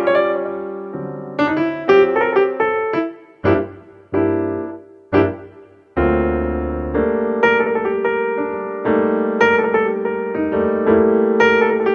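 Background piano music: single notes and chords struck and left to ring and fade, turning into a steadier, denser run of notes about halfway through.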